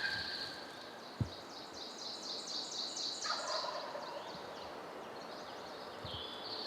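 A wild turkey gobbler gobbling at a distance, a rapid rattling call about three seconds in, with high songbird trills around it. A single short thump about a second in.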